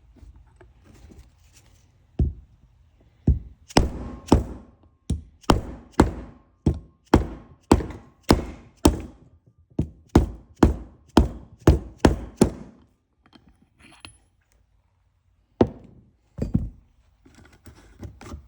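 Repeated sharp knocks on a 1982 Honda GoldWing front brake caliper as a piston is tapped into its bore past the rubber seals. There are about twenty, roughly two a second, then a pause and two more.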